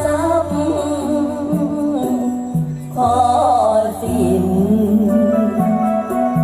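Music: a sung melody with wavering, bending notes over steady instrumental backing.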